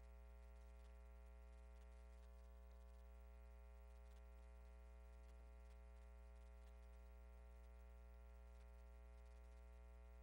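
Near silence with a faint, steady hum made of several tones.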